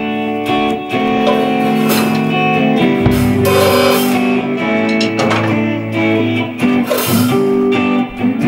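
A band playing: held guitar chords with drums, cymbal crashes coming in every second or two.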